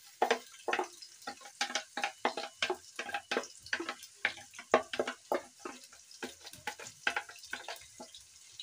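A wooden spatula scraping and knocking blended pepper and onion out of a plastic bowl into a pot of hot oil, in quick, irregular strokes, with the paste sizzling as it lands.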